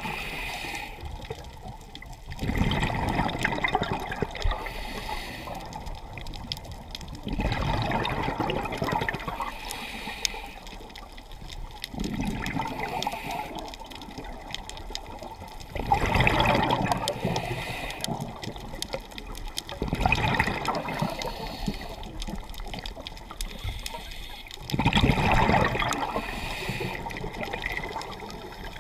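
Scuba diver breathing through a regulator underwater: exhaled air bubbles rush and gurgle out in bursts about every four to five seconds, with quieter spells between.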